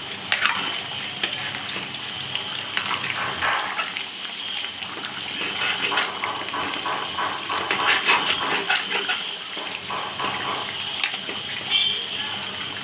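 Chicken curry gravy simmering and bubbling in a metal kadhai, with a steady liquid hiss. A metal ladle stirs it, clinking and scraping against the pan again and again.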